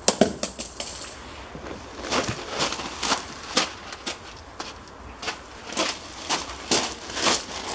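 Footsteps crunching on loose gravel at a walking pace, one step about every half second. Just before them, in the first second, there are a few sharp knocks.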